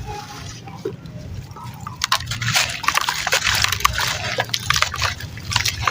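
Sand-and-cement chunks crumbling in water: wet crackling, fizzing and small splashes and drips, growing dense and busy about two seconds in.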